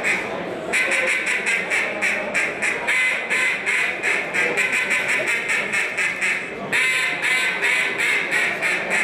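Hand-held mallard duck call blown in a rapid, even run of quacks, about six a second, broken by two short pauses for breath.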